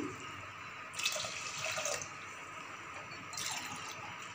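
Water poured from a glass into an aluminium pressure cooker onto dry broken wheat and moong dal, splashing in two spells: about a second in, then again near the end.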